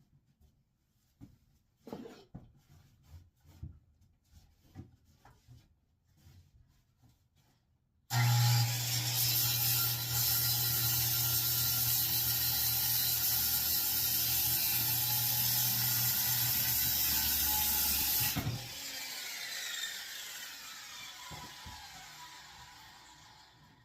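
A few faint handling clicks and knocks, then an electric power tool's motor switches on abruptly about eight seconds in. It runs loud and steady at constant speed for about ten seconds, then is switched off and spins down, its pitch falling as it coasts to a stop.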